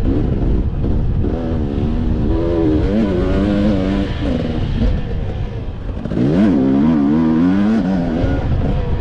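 Dirt bike engine revving up and down through the gears while riding, over heavy wind rumble on the microphone. About six seconds in the revs drop briefly, then climb steeply again under hard throttle.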